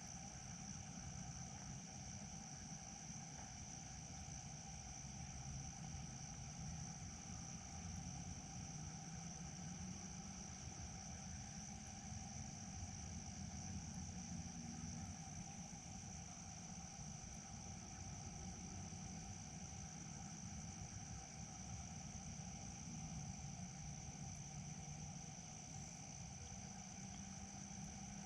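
Steady, unbroken high-pitched chirring of crickets or other night insects, with a low rumble underneath.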